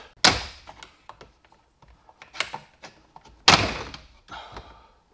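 Plastic dash trim clips snapping loose as the hood over a C8 Corvette's instrument cluster is pried up by hand: three sharp pops, the loudest past the halfway mark, with small clicks and rattles of the plastic panel between. The clips hold tightly.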